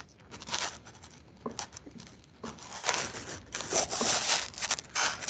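Paper rustling and crinkling picked up by an unmuted microphone on a video call: irregular scratchy rustles that grow denser and louder after about two and a half seconds.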